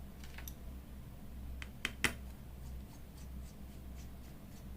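Small screwdriver unscrewing the two tiny screws that hold a Vivo Y11 phone's motherboard: faint scratchy clicks of metal on screw heads, with two sharper clicks about two seconds in, over a low steady hum.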